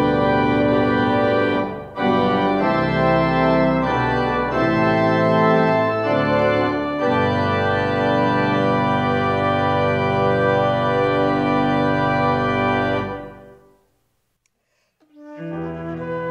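Church organ playing full, sustained chords, with a short break about two seconds in. The final chord is released about thirteen seconds in and dies away to silence, and softer music begins near the end.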